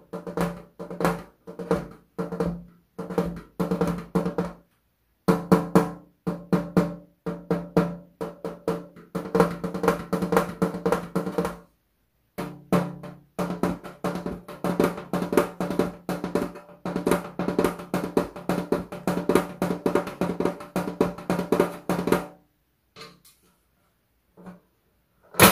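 Fingers and palm drumming on a thin aluminium (yangeun) folding tray table, in runs of quick taps that make the metal ring at a steady low pitch. The tapping stops a few seconds before a single sharp clack at the very end.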